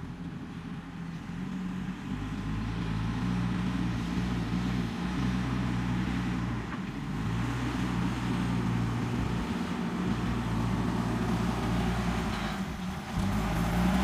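JCB 3DX backhoe loader's diesel engine running under load as its front bucket pushes and levels soil, growing louder over the first couple of seconds as the machine comes closer.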